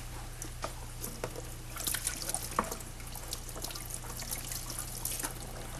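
Tap water running into a sink, with light clinks of dishes being rinsed.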